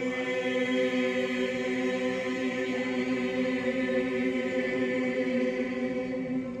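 Mixed choir singing, holding one long chord that is released near the end.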